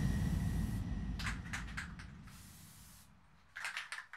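Aerosol can of Plasti Dip rubber coating spraying in short hissing bursts: a quick run about a second in, a longer hiss around two and a half seconds, and another quick run near the end.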